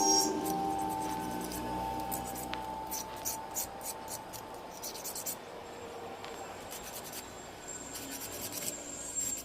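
Faint scratching and rubbing with scattered small ticks, while a steady tone fades away over the first two seconds or so.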